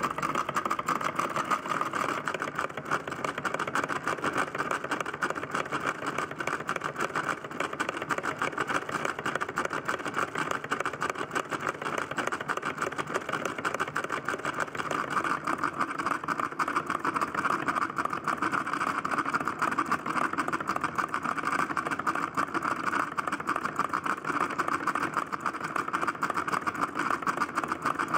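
Small model solenoid engine, converted from a cheap Stirling engine, running at a steady speed with a fast, even clatter. It drives a line shaft and a little dynamo by belts.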